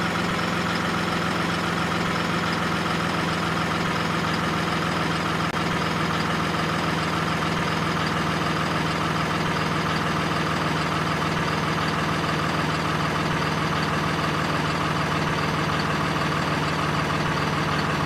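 Steady idling truck-engine sound, a low hum with a fast, even pulsing that holds unchanged throughout.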